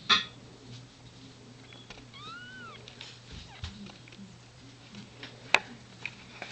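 A cat gives one short meow that rises and then falls in pitch, about two seconds in. A loud sharp knock comes right at the start, and a sharp click about five seconds later.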